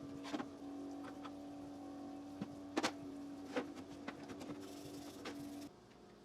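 A small motor running at a steady pitch, with scattered metallic clicks and taps over it, cutting off about five and a half seconds in.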